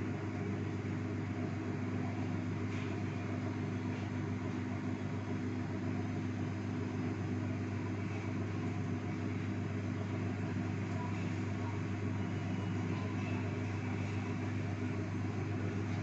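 Samsung microwave oven running at full power, giving a steady, unchanging hum while it cooks.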